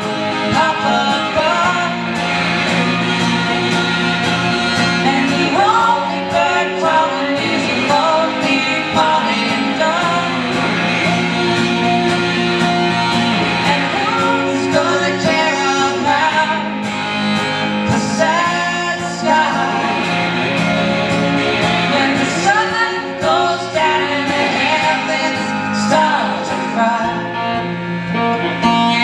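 Live song played on acoustic and electric guitars, with singing.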